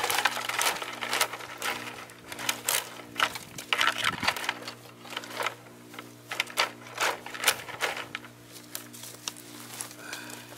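Dry twigs and sticks clattering and cracking as they are handled and dropped into a plastic bucket. The sharp irregular cracks come in a quick run and thin out after about eight seconds.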